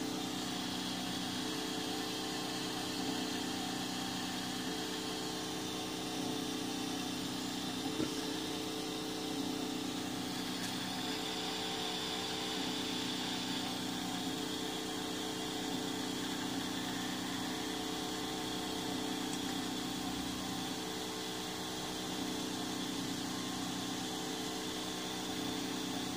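Steady motor hum with several held tones from a 3D printer as its extruder feeds filament through the hot end.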